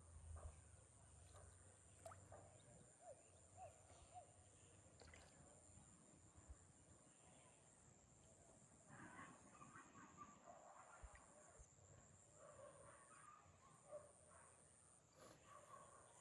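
Near silence: faint outdoor ambience with a steady high-pitched insect drone, broken by short regular gaps.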